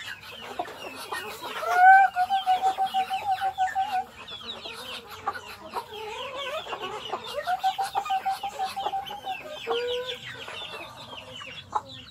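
A flock of chickens feeding: chicks peeping constantly and hens clucking. Twice, a long call pulses rapidly on one steady pitch for about two seconds.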